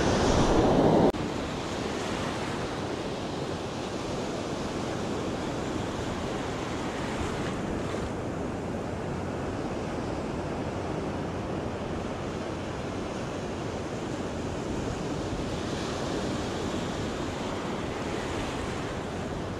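Ocean surf washing on a beach, with wind buffeting the microphone. A louder rush in the first second settles into a steady wash.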